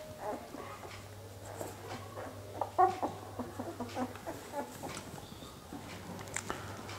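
An Indian pariah dog puppy making short squeaks and grunts while suckling milk from a feeding bottle, loudest about three seconds in.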